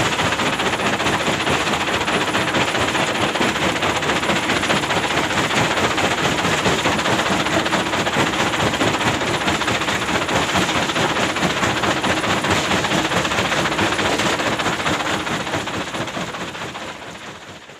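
Hyundai excavator's diesel engine running with a dense, fast rattle, fading out over the last few seconds.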